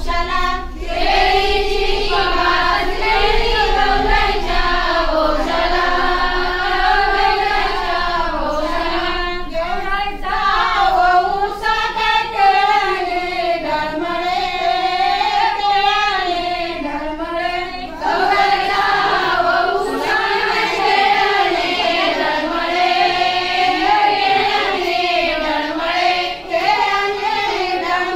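A group of women singing a folk song together in unison, with high voices and a continuous melodic line.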